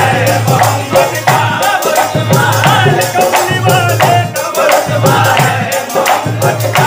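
Live qawwali: men singing over a harmonium, with a hand-held rattle shaken in a quick, steady beat.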